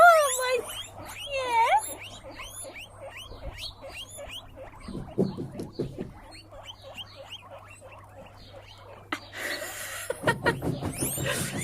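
Several guinea pigs wheeking: a run of high, rising and falling squeaks, the loudest at the start, the sign that they are expecting their dinner. A rustle comes near the end.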